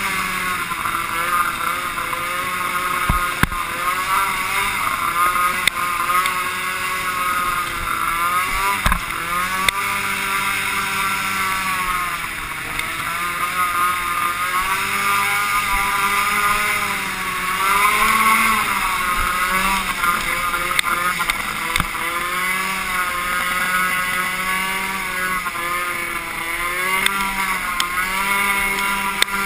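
Snowmobile engine revving up and down again and again as the throttle is worked, with a few sharp knocks along the way.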